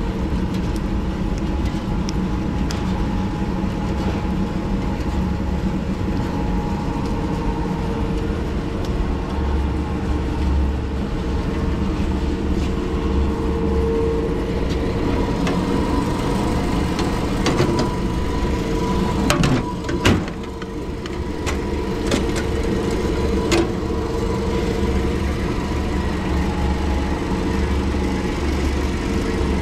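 Tannewitz GV-1 36-inch vertical bandsaw running free with no cut, its 5 HP three-phase motor and wheels giving a steady hum and whine. A few sharp clicks and a brief knock come about two-thirds of the way through.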